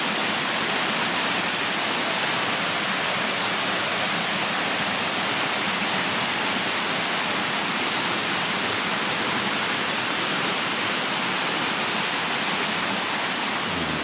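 Waterfall cascading down a rock face close by: a steady, loud rush of falling water.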